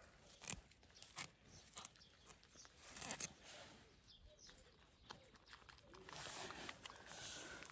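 Baby goat nibbling and chewing fresh grass and clover from a hand: faint crisp clicks of biting and tearing, busiest about three seconds in. A soft rustle of handled leaves follows near the end.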